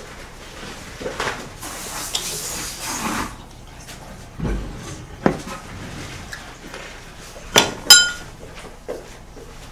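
Chopsticks knocking and scraping against a large bowl as sauce-coated noodles are mixed, with scattered clicks. A sharp ringing clink of tableware comes just before the end.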